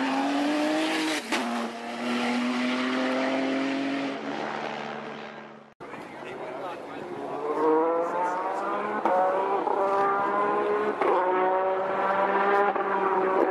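Race car engine pulling hard, its revs rising in each gear with quick upshifts. The first note shifts about a second in and fades as the car moves away, then cuts off abruptly. A second engine note climbs and grows louder through three upshifts.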